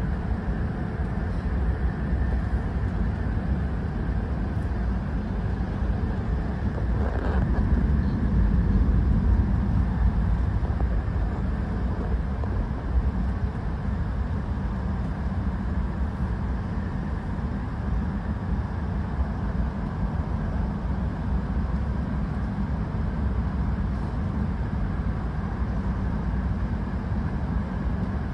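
Steady rumble of an E5 series Shinkansen heard from inside the passenger car as the train runs. The rumble swells for a couple of seconds about seven to eight seconds in, then settles back.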